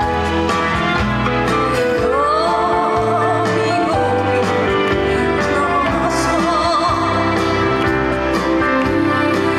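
A woman singing a slow song live over instrumental accompaniment with a steady bass line; from about two seconds in she holds long notes with a wide vibrato.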